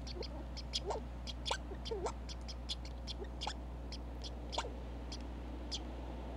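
Red squirrel calling: a string of short, high chirps, about three or four a second, some with a lower squeaky note. The chirps space out and stop about half a second before the end.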